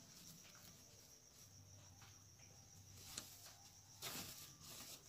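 Near silence with soft rustling of fabric as a sewn cloth face mask is turned right side out by hand, loudest briefly about four seconds in.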